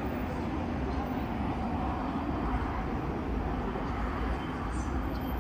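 Steady city street noise: a low, even traffic rumble.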